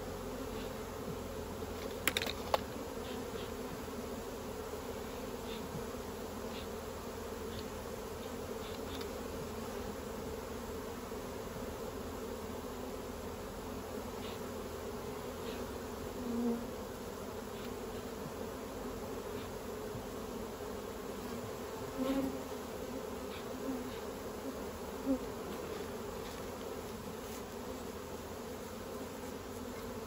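Honeybees buzzing steadily around an opened hive, a dense, even hum, with a few brief louder buzzes now and then. A couple of sharp clicks about two seconds in.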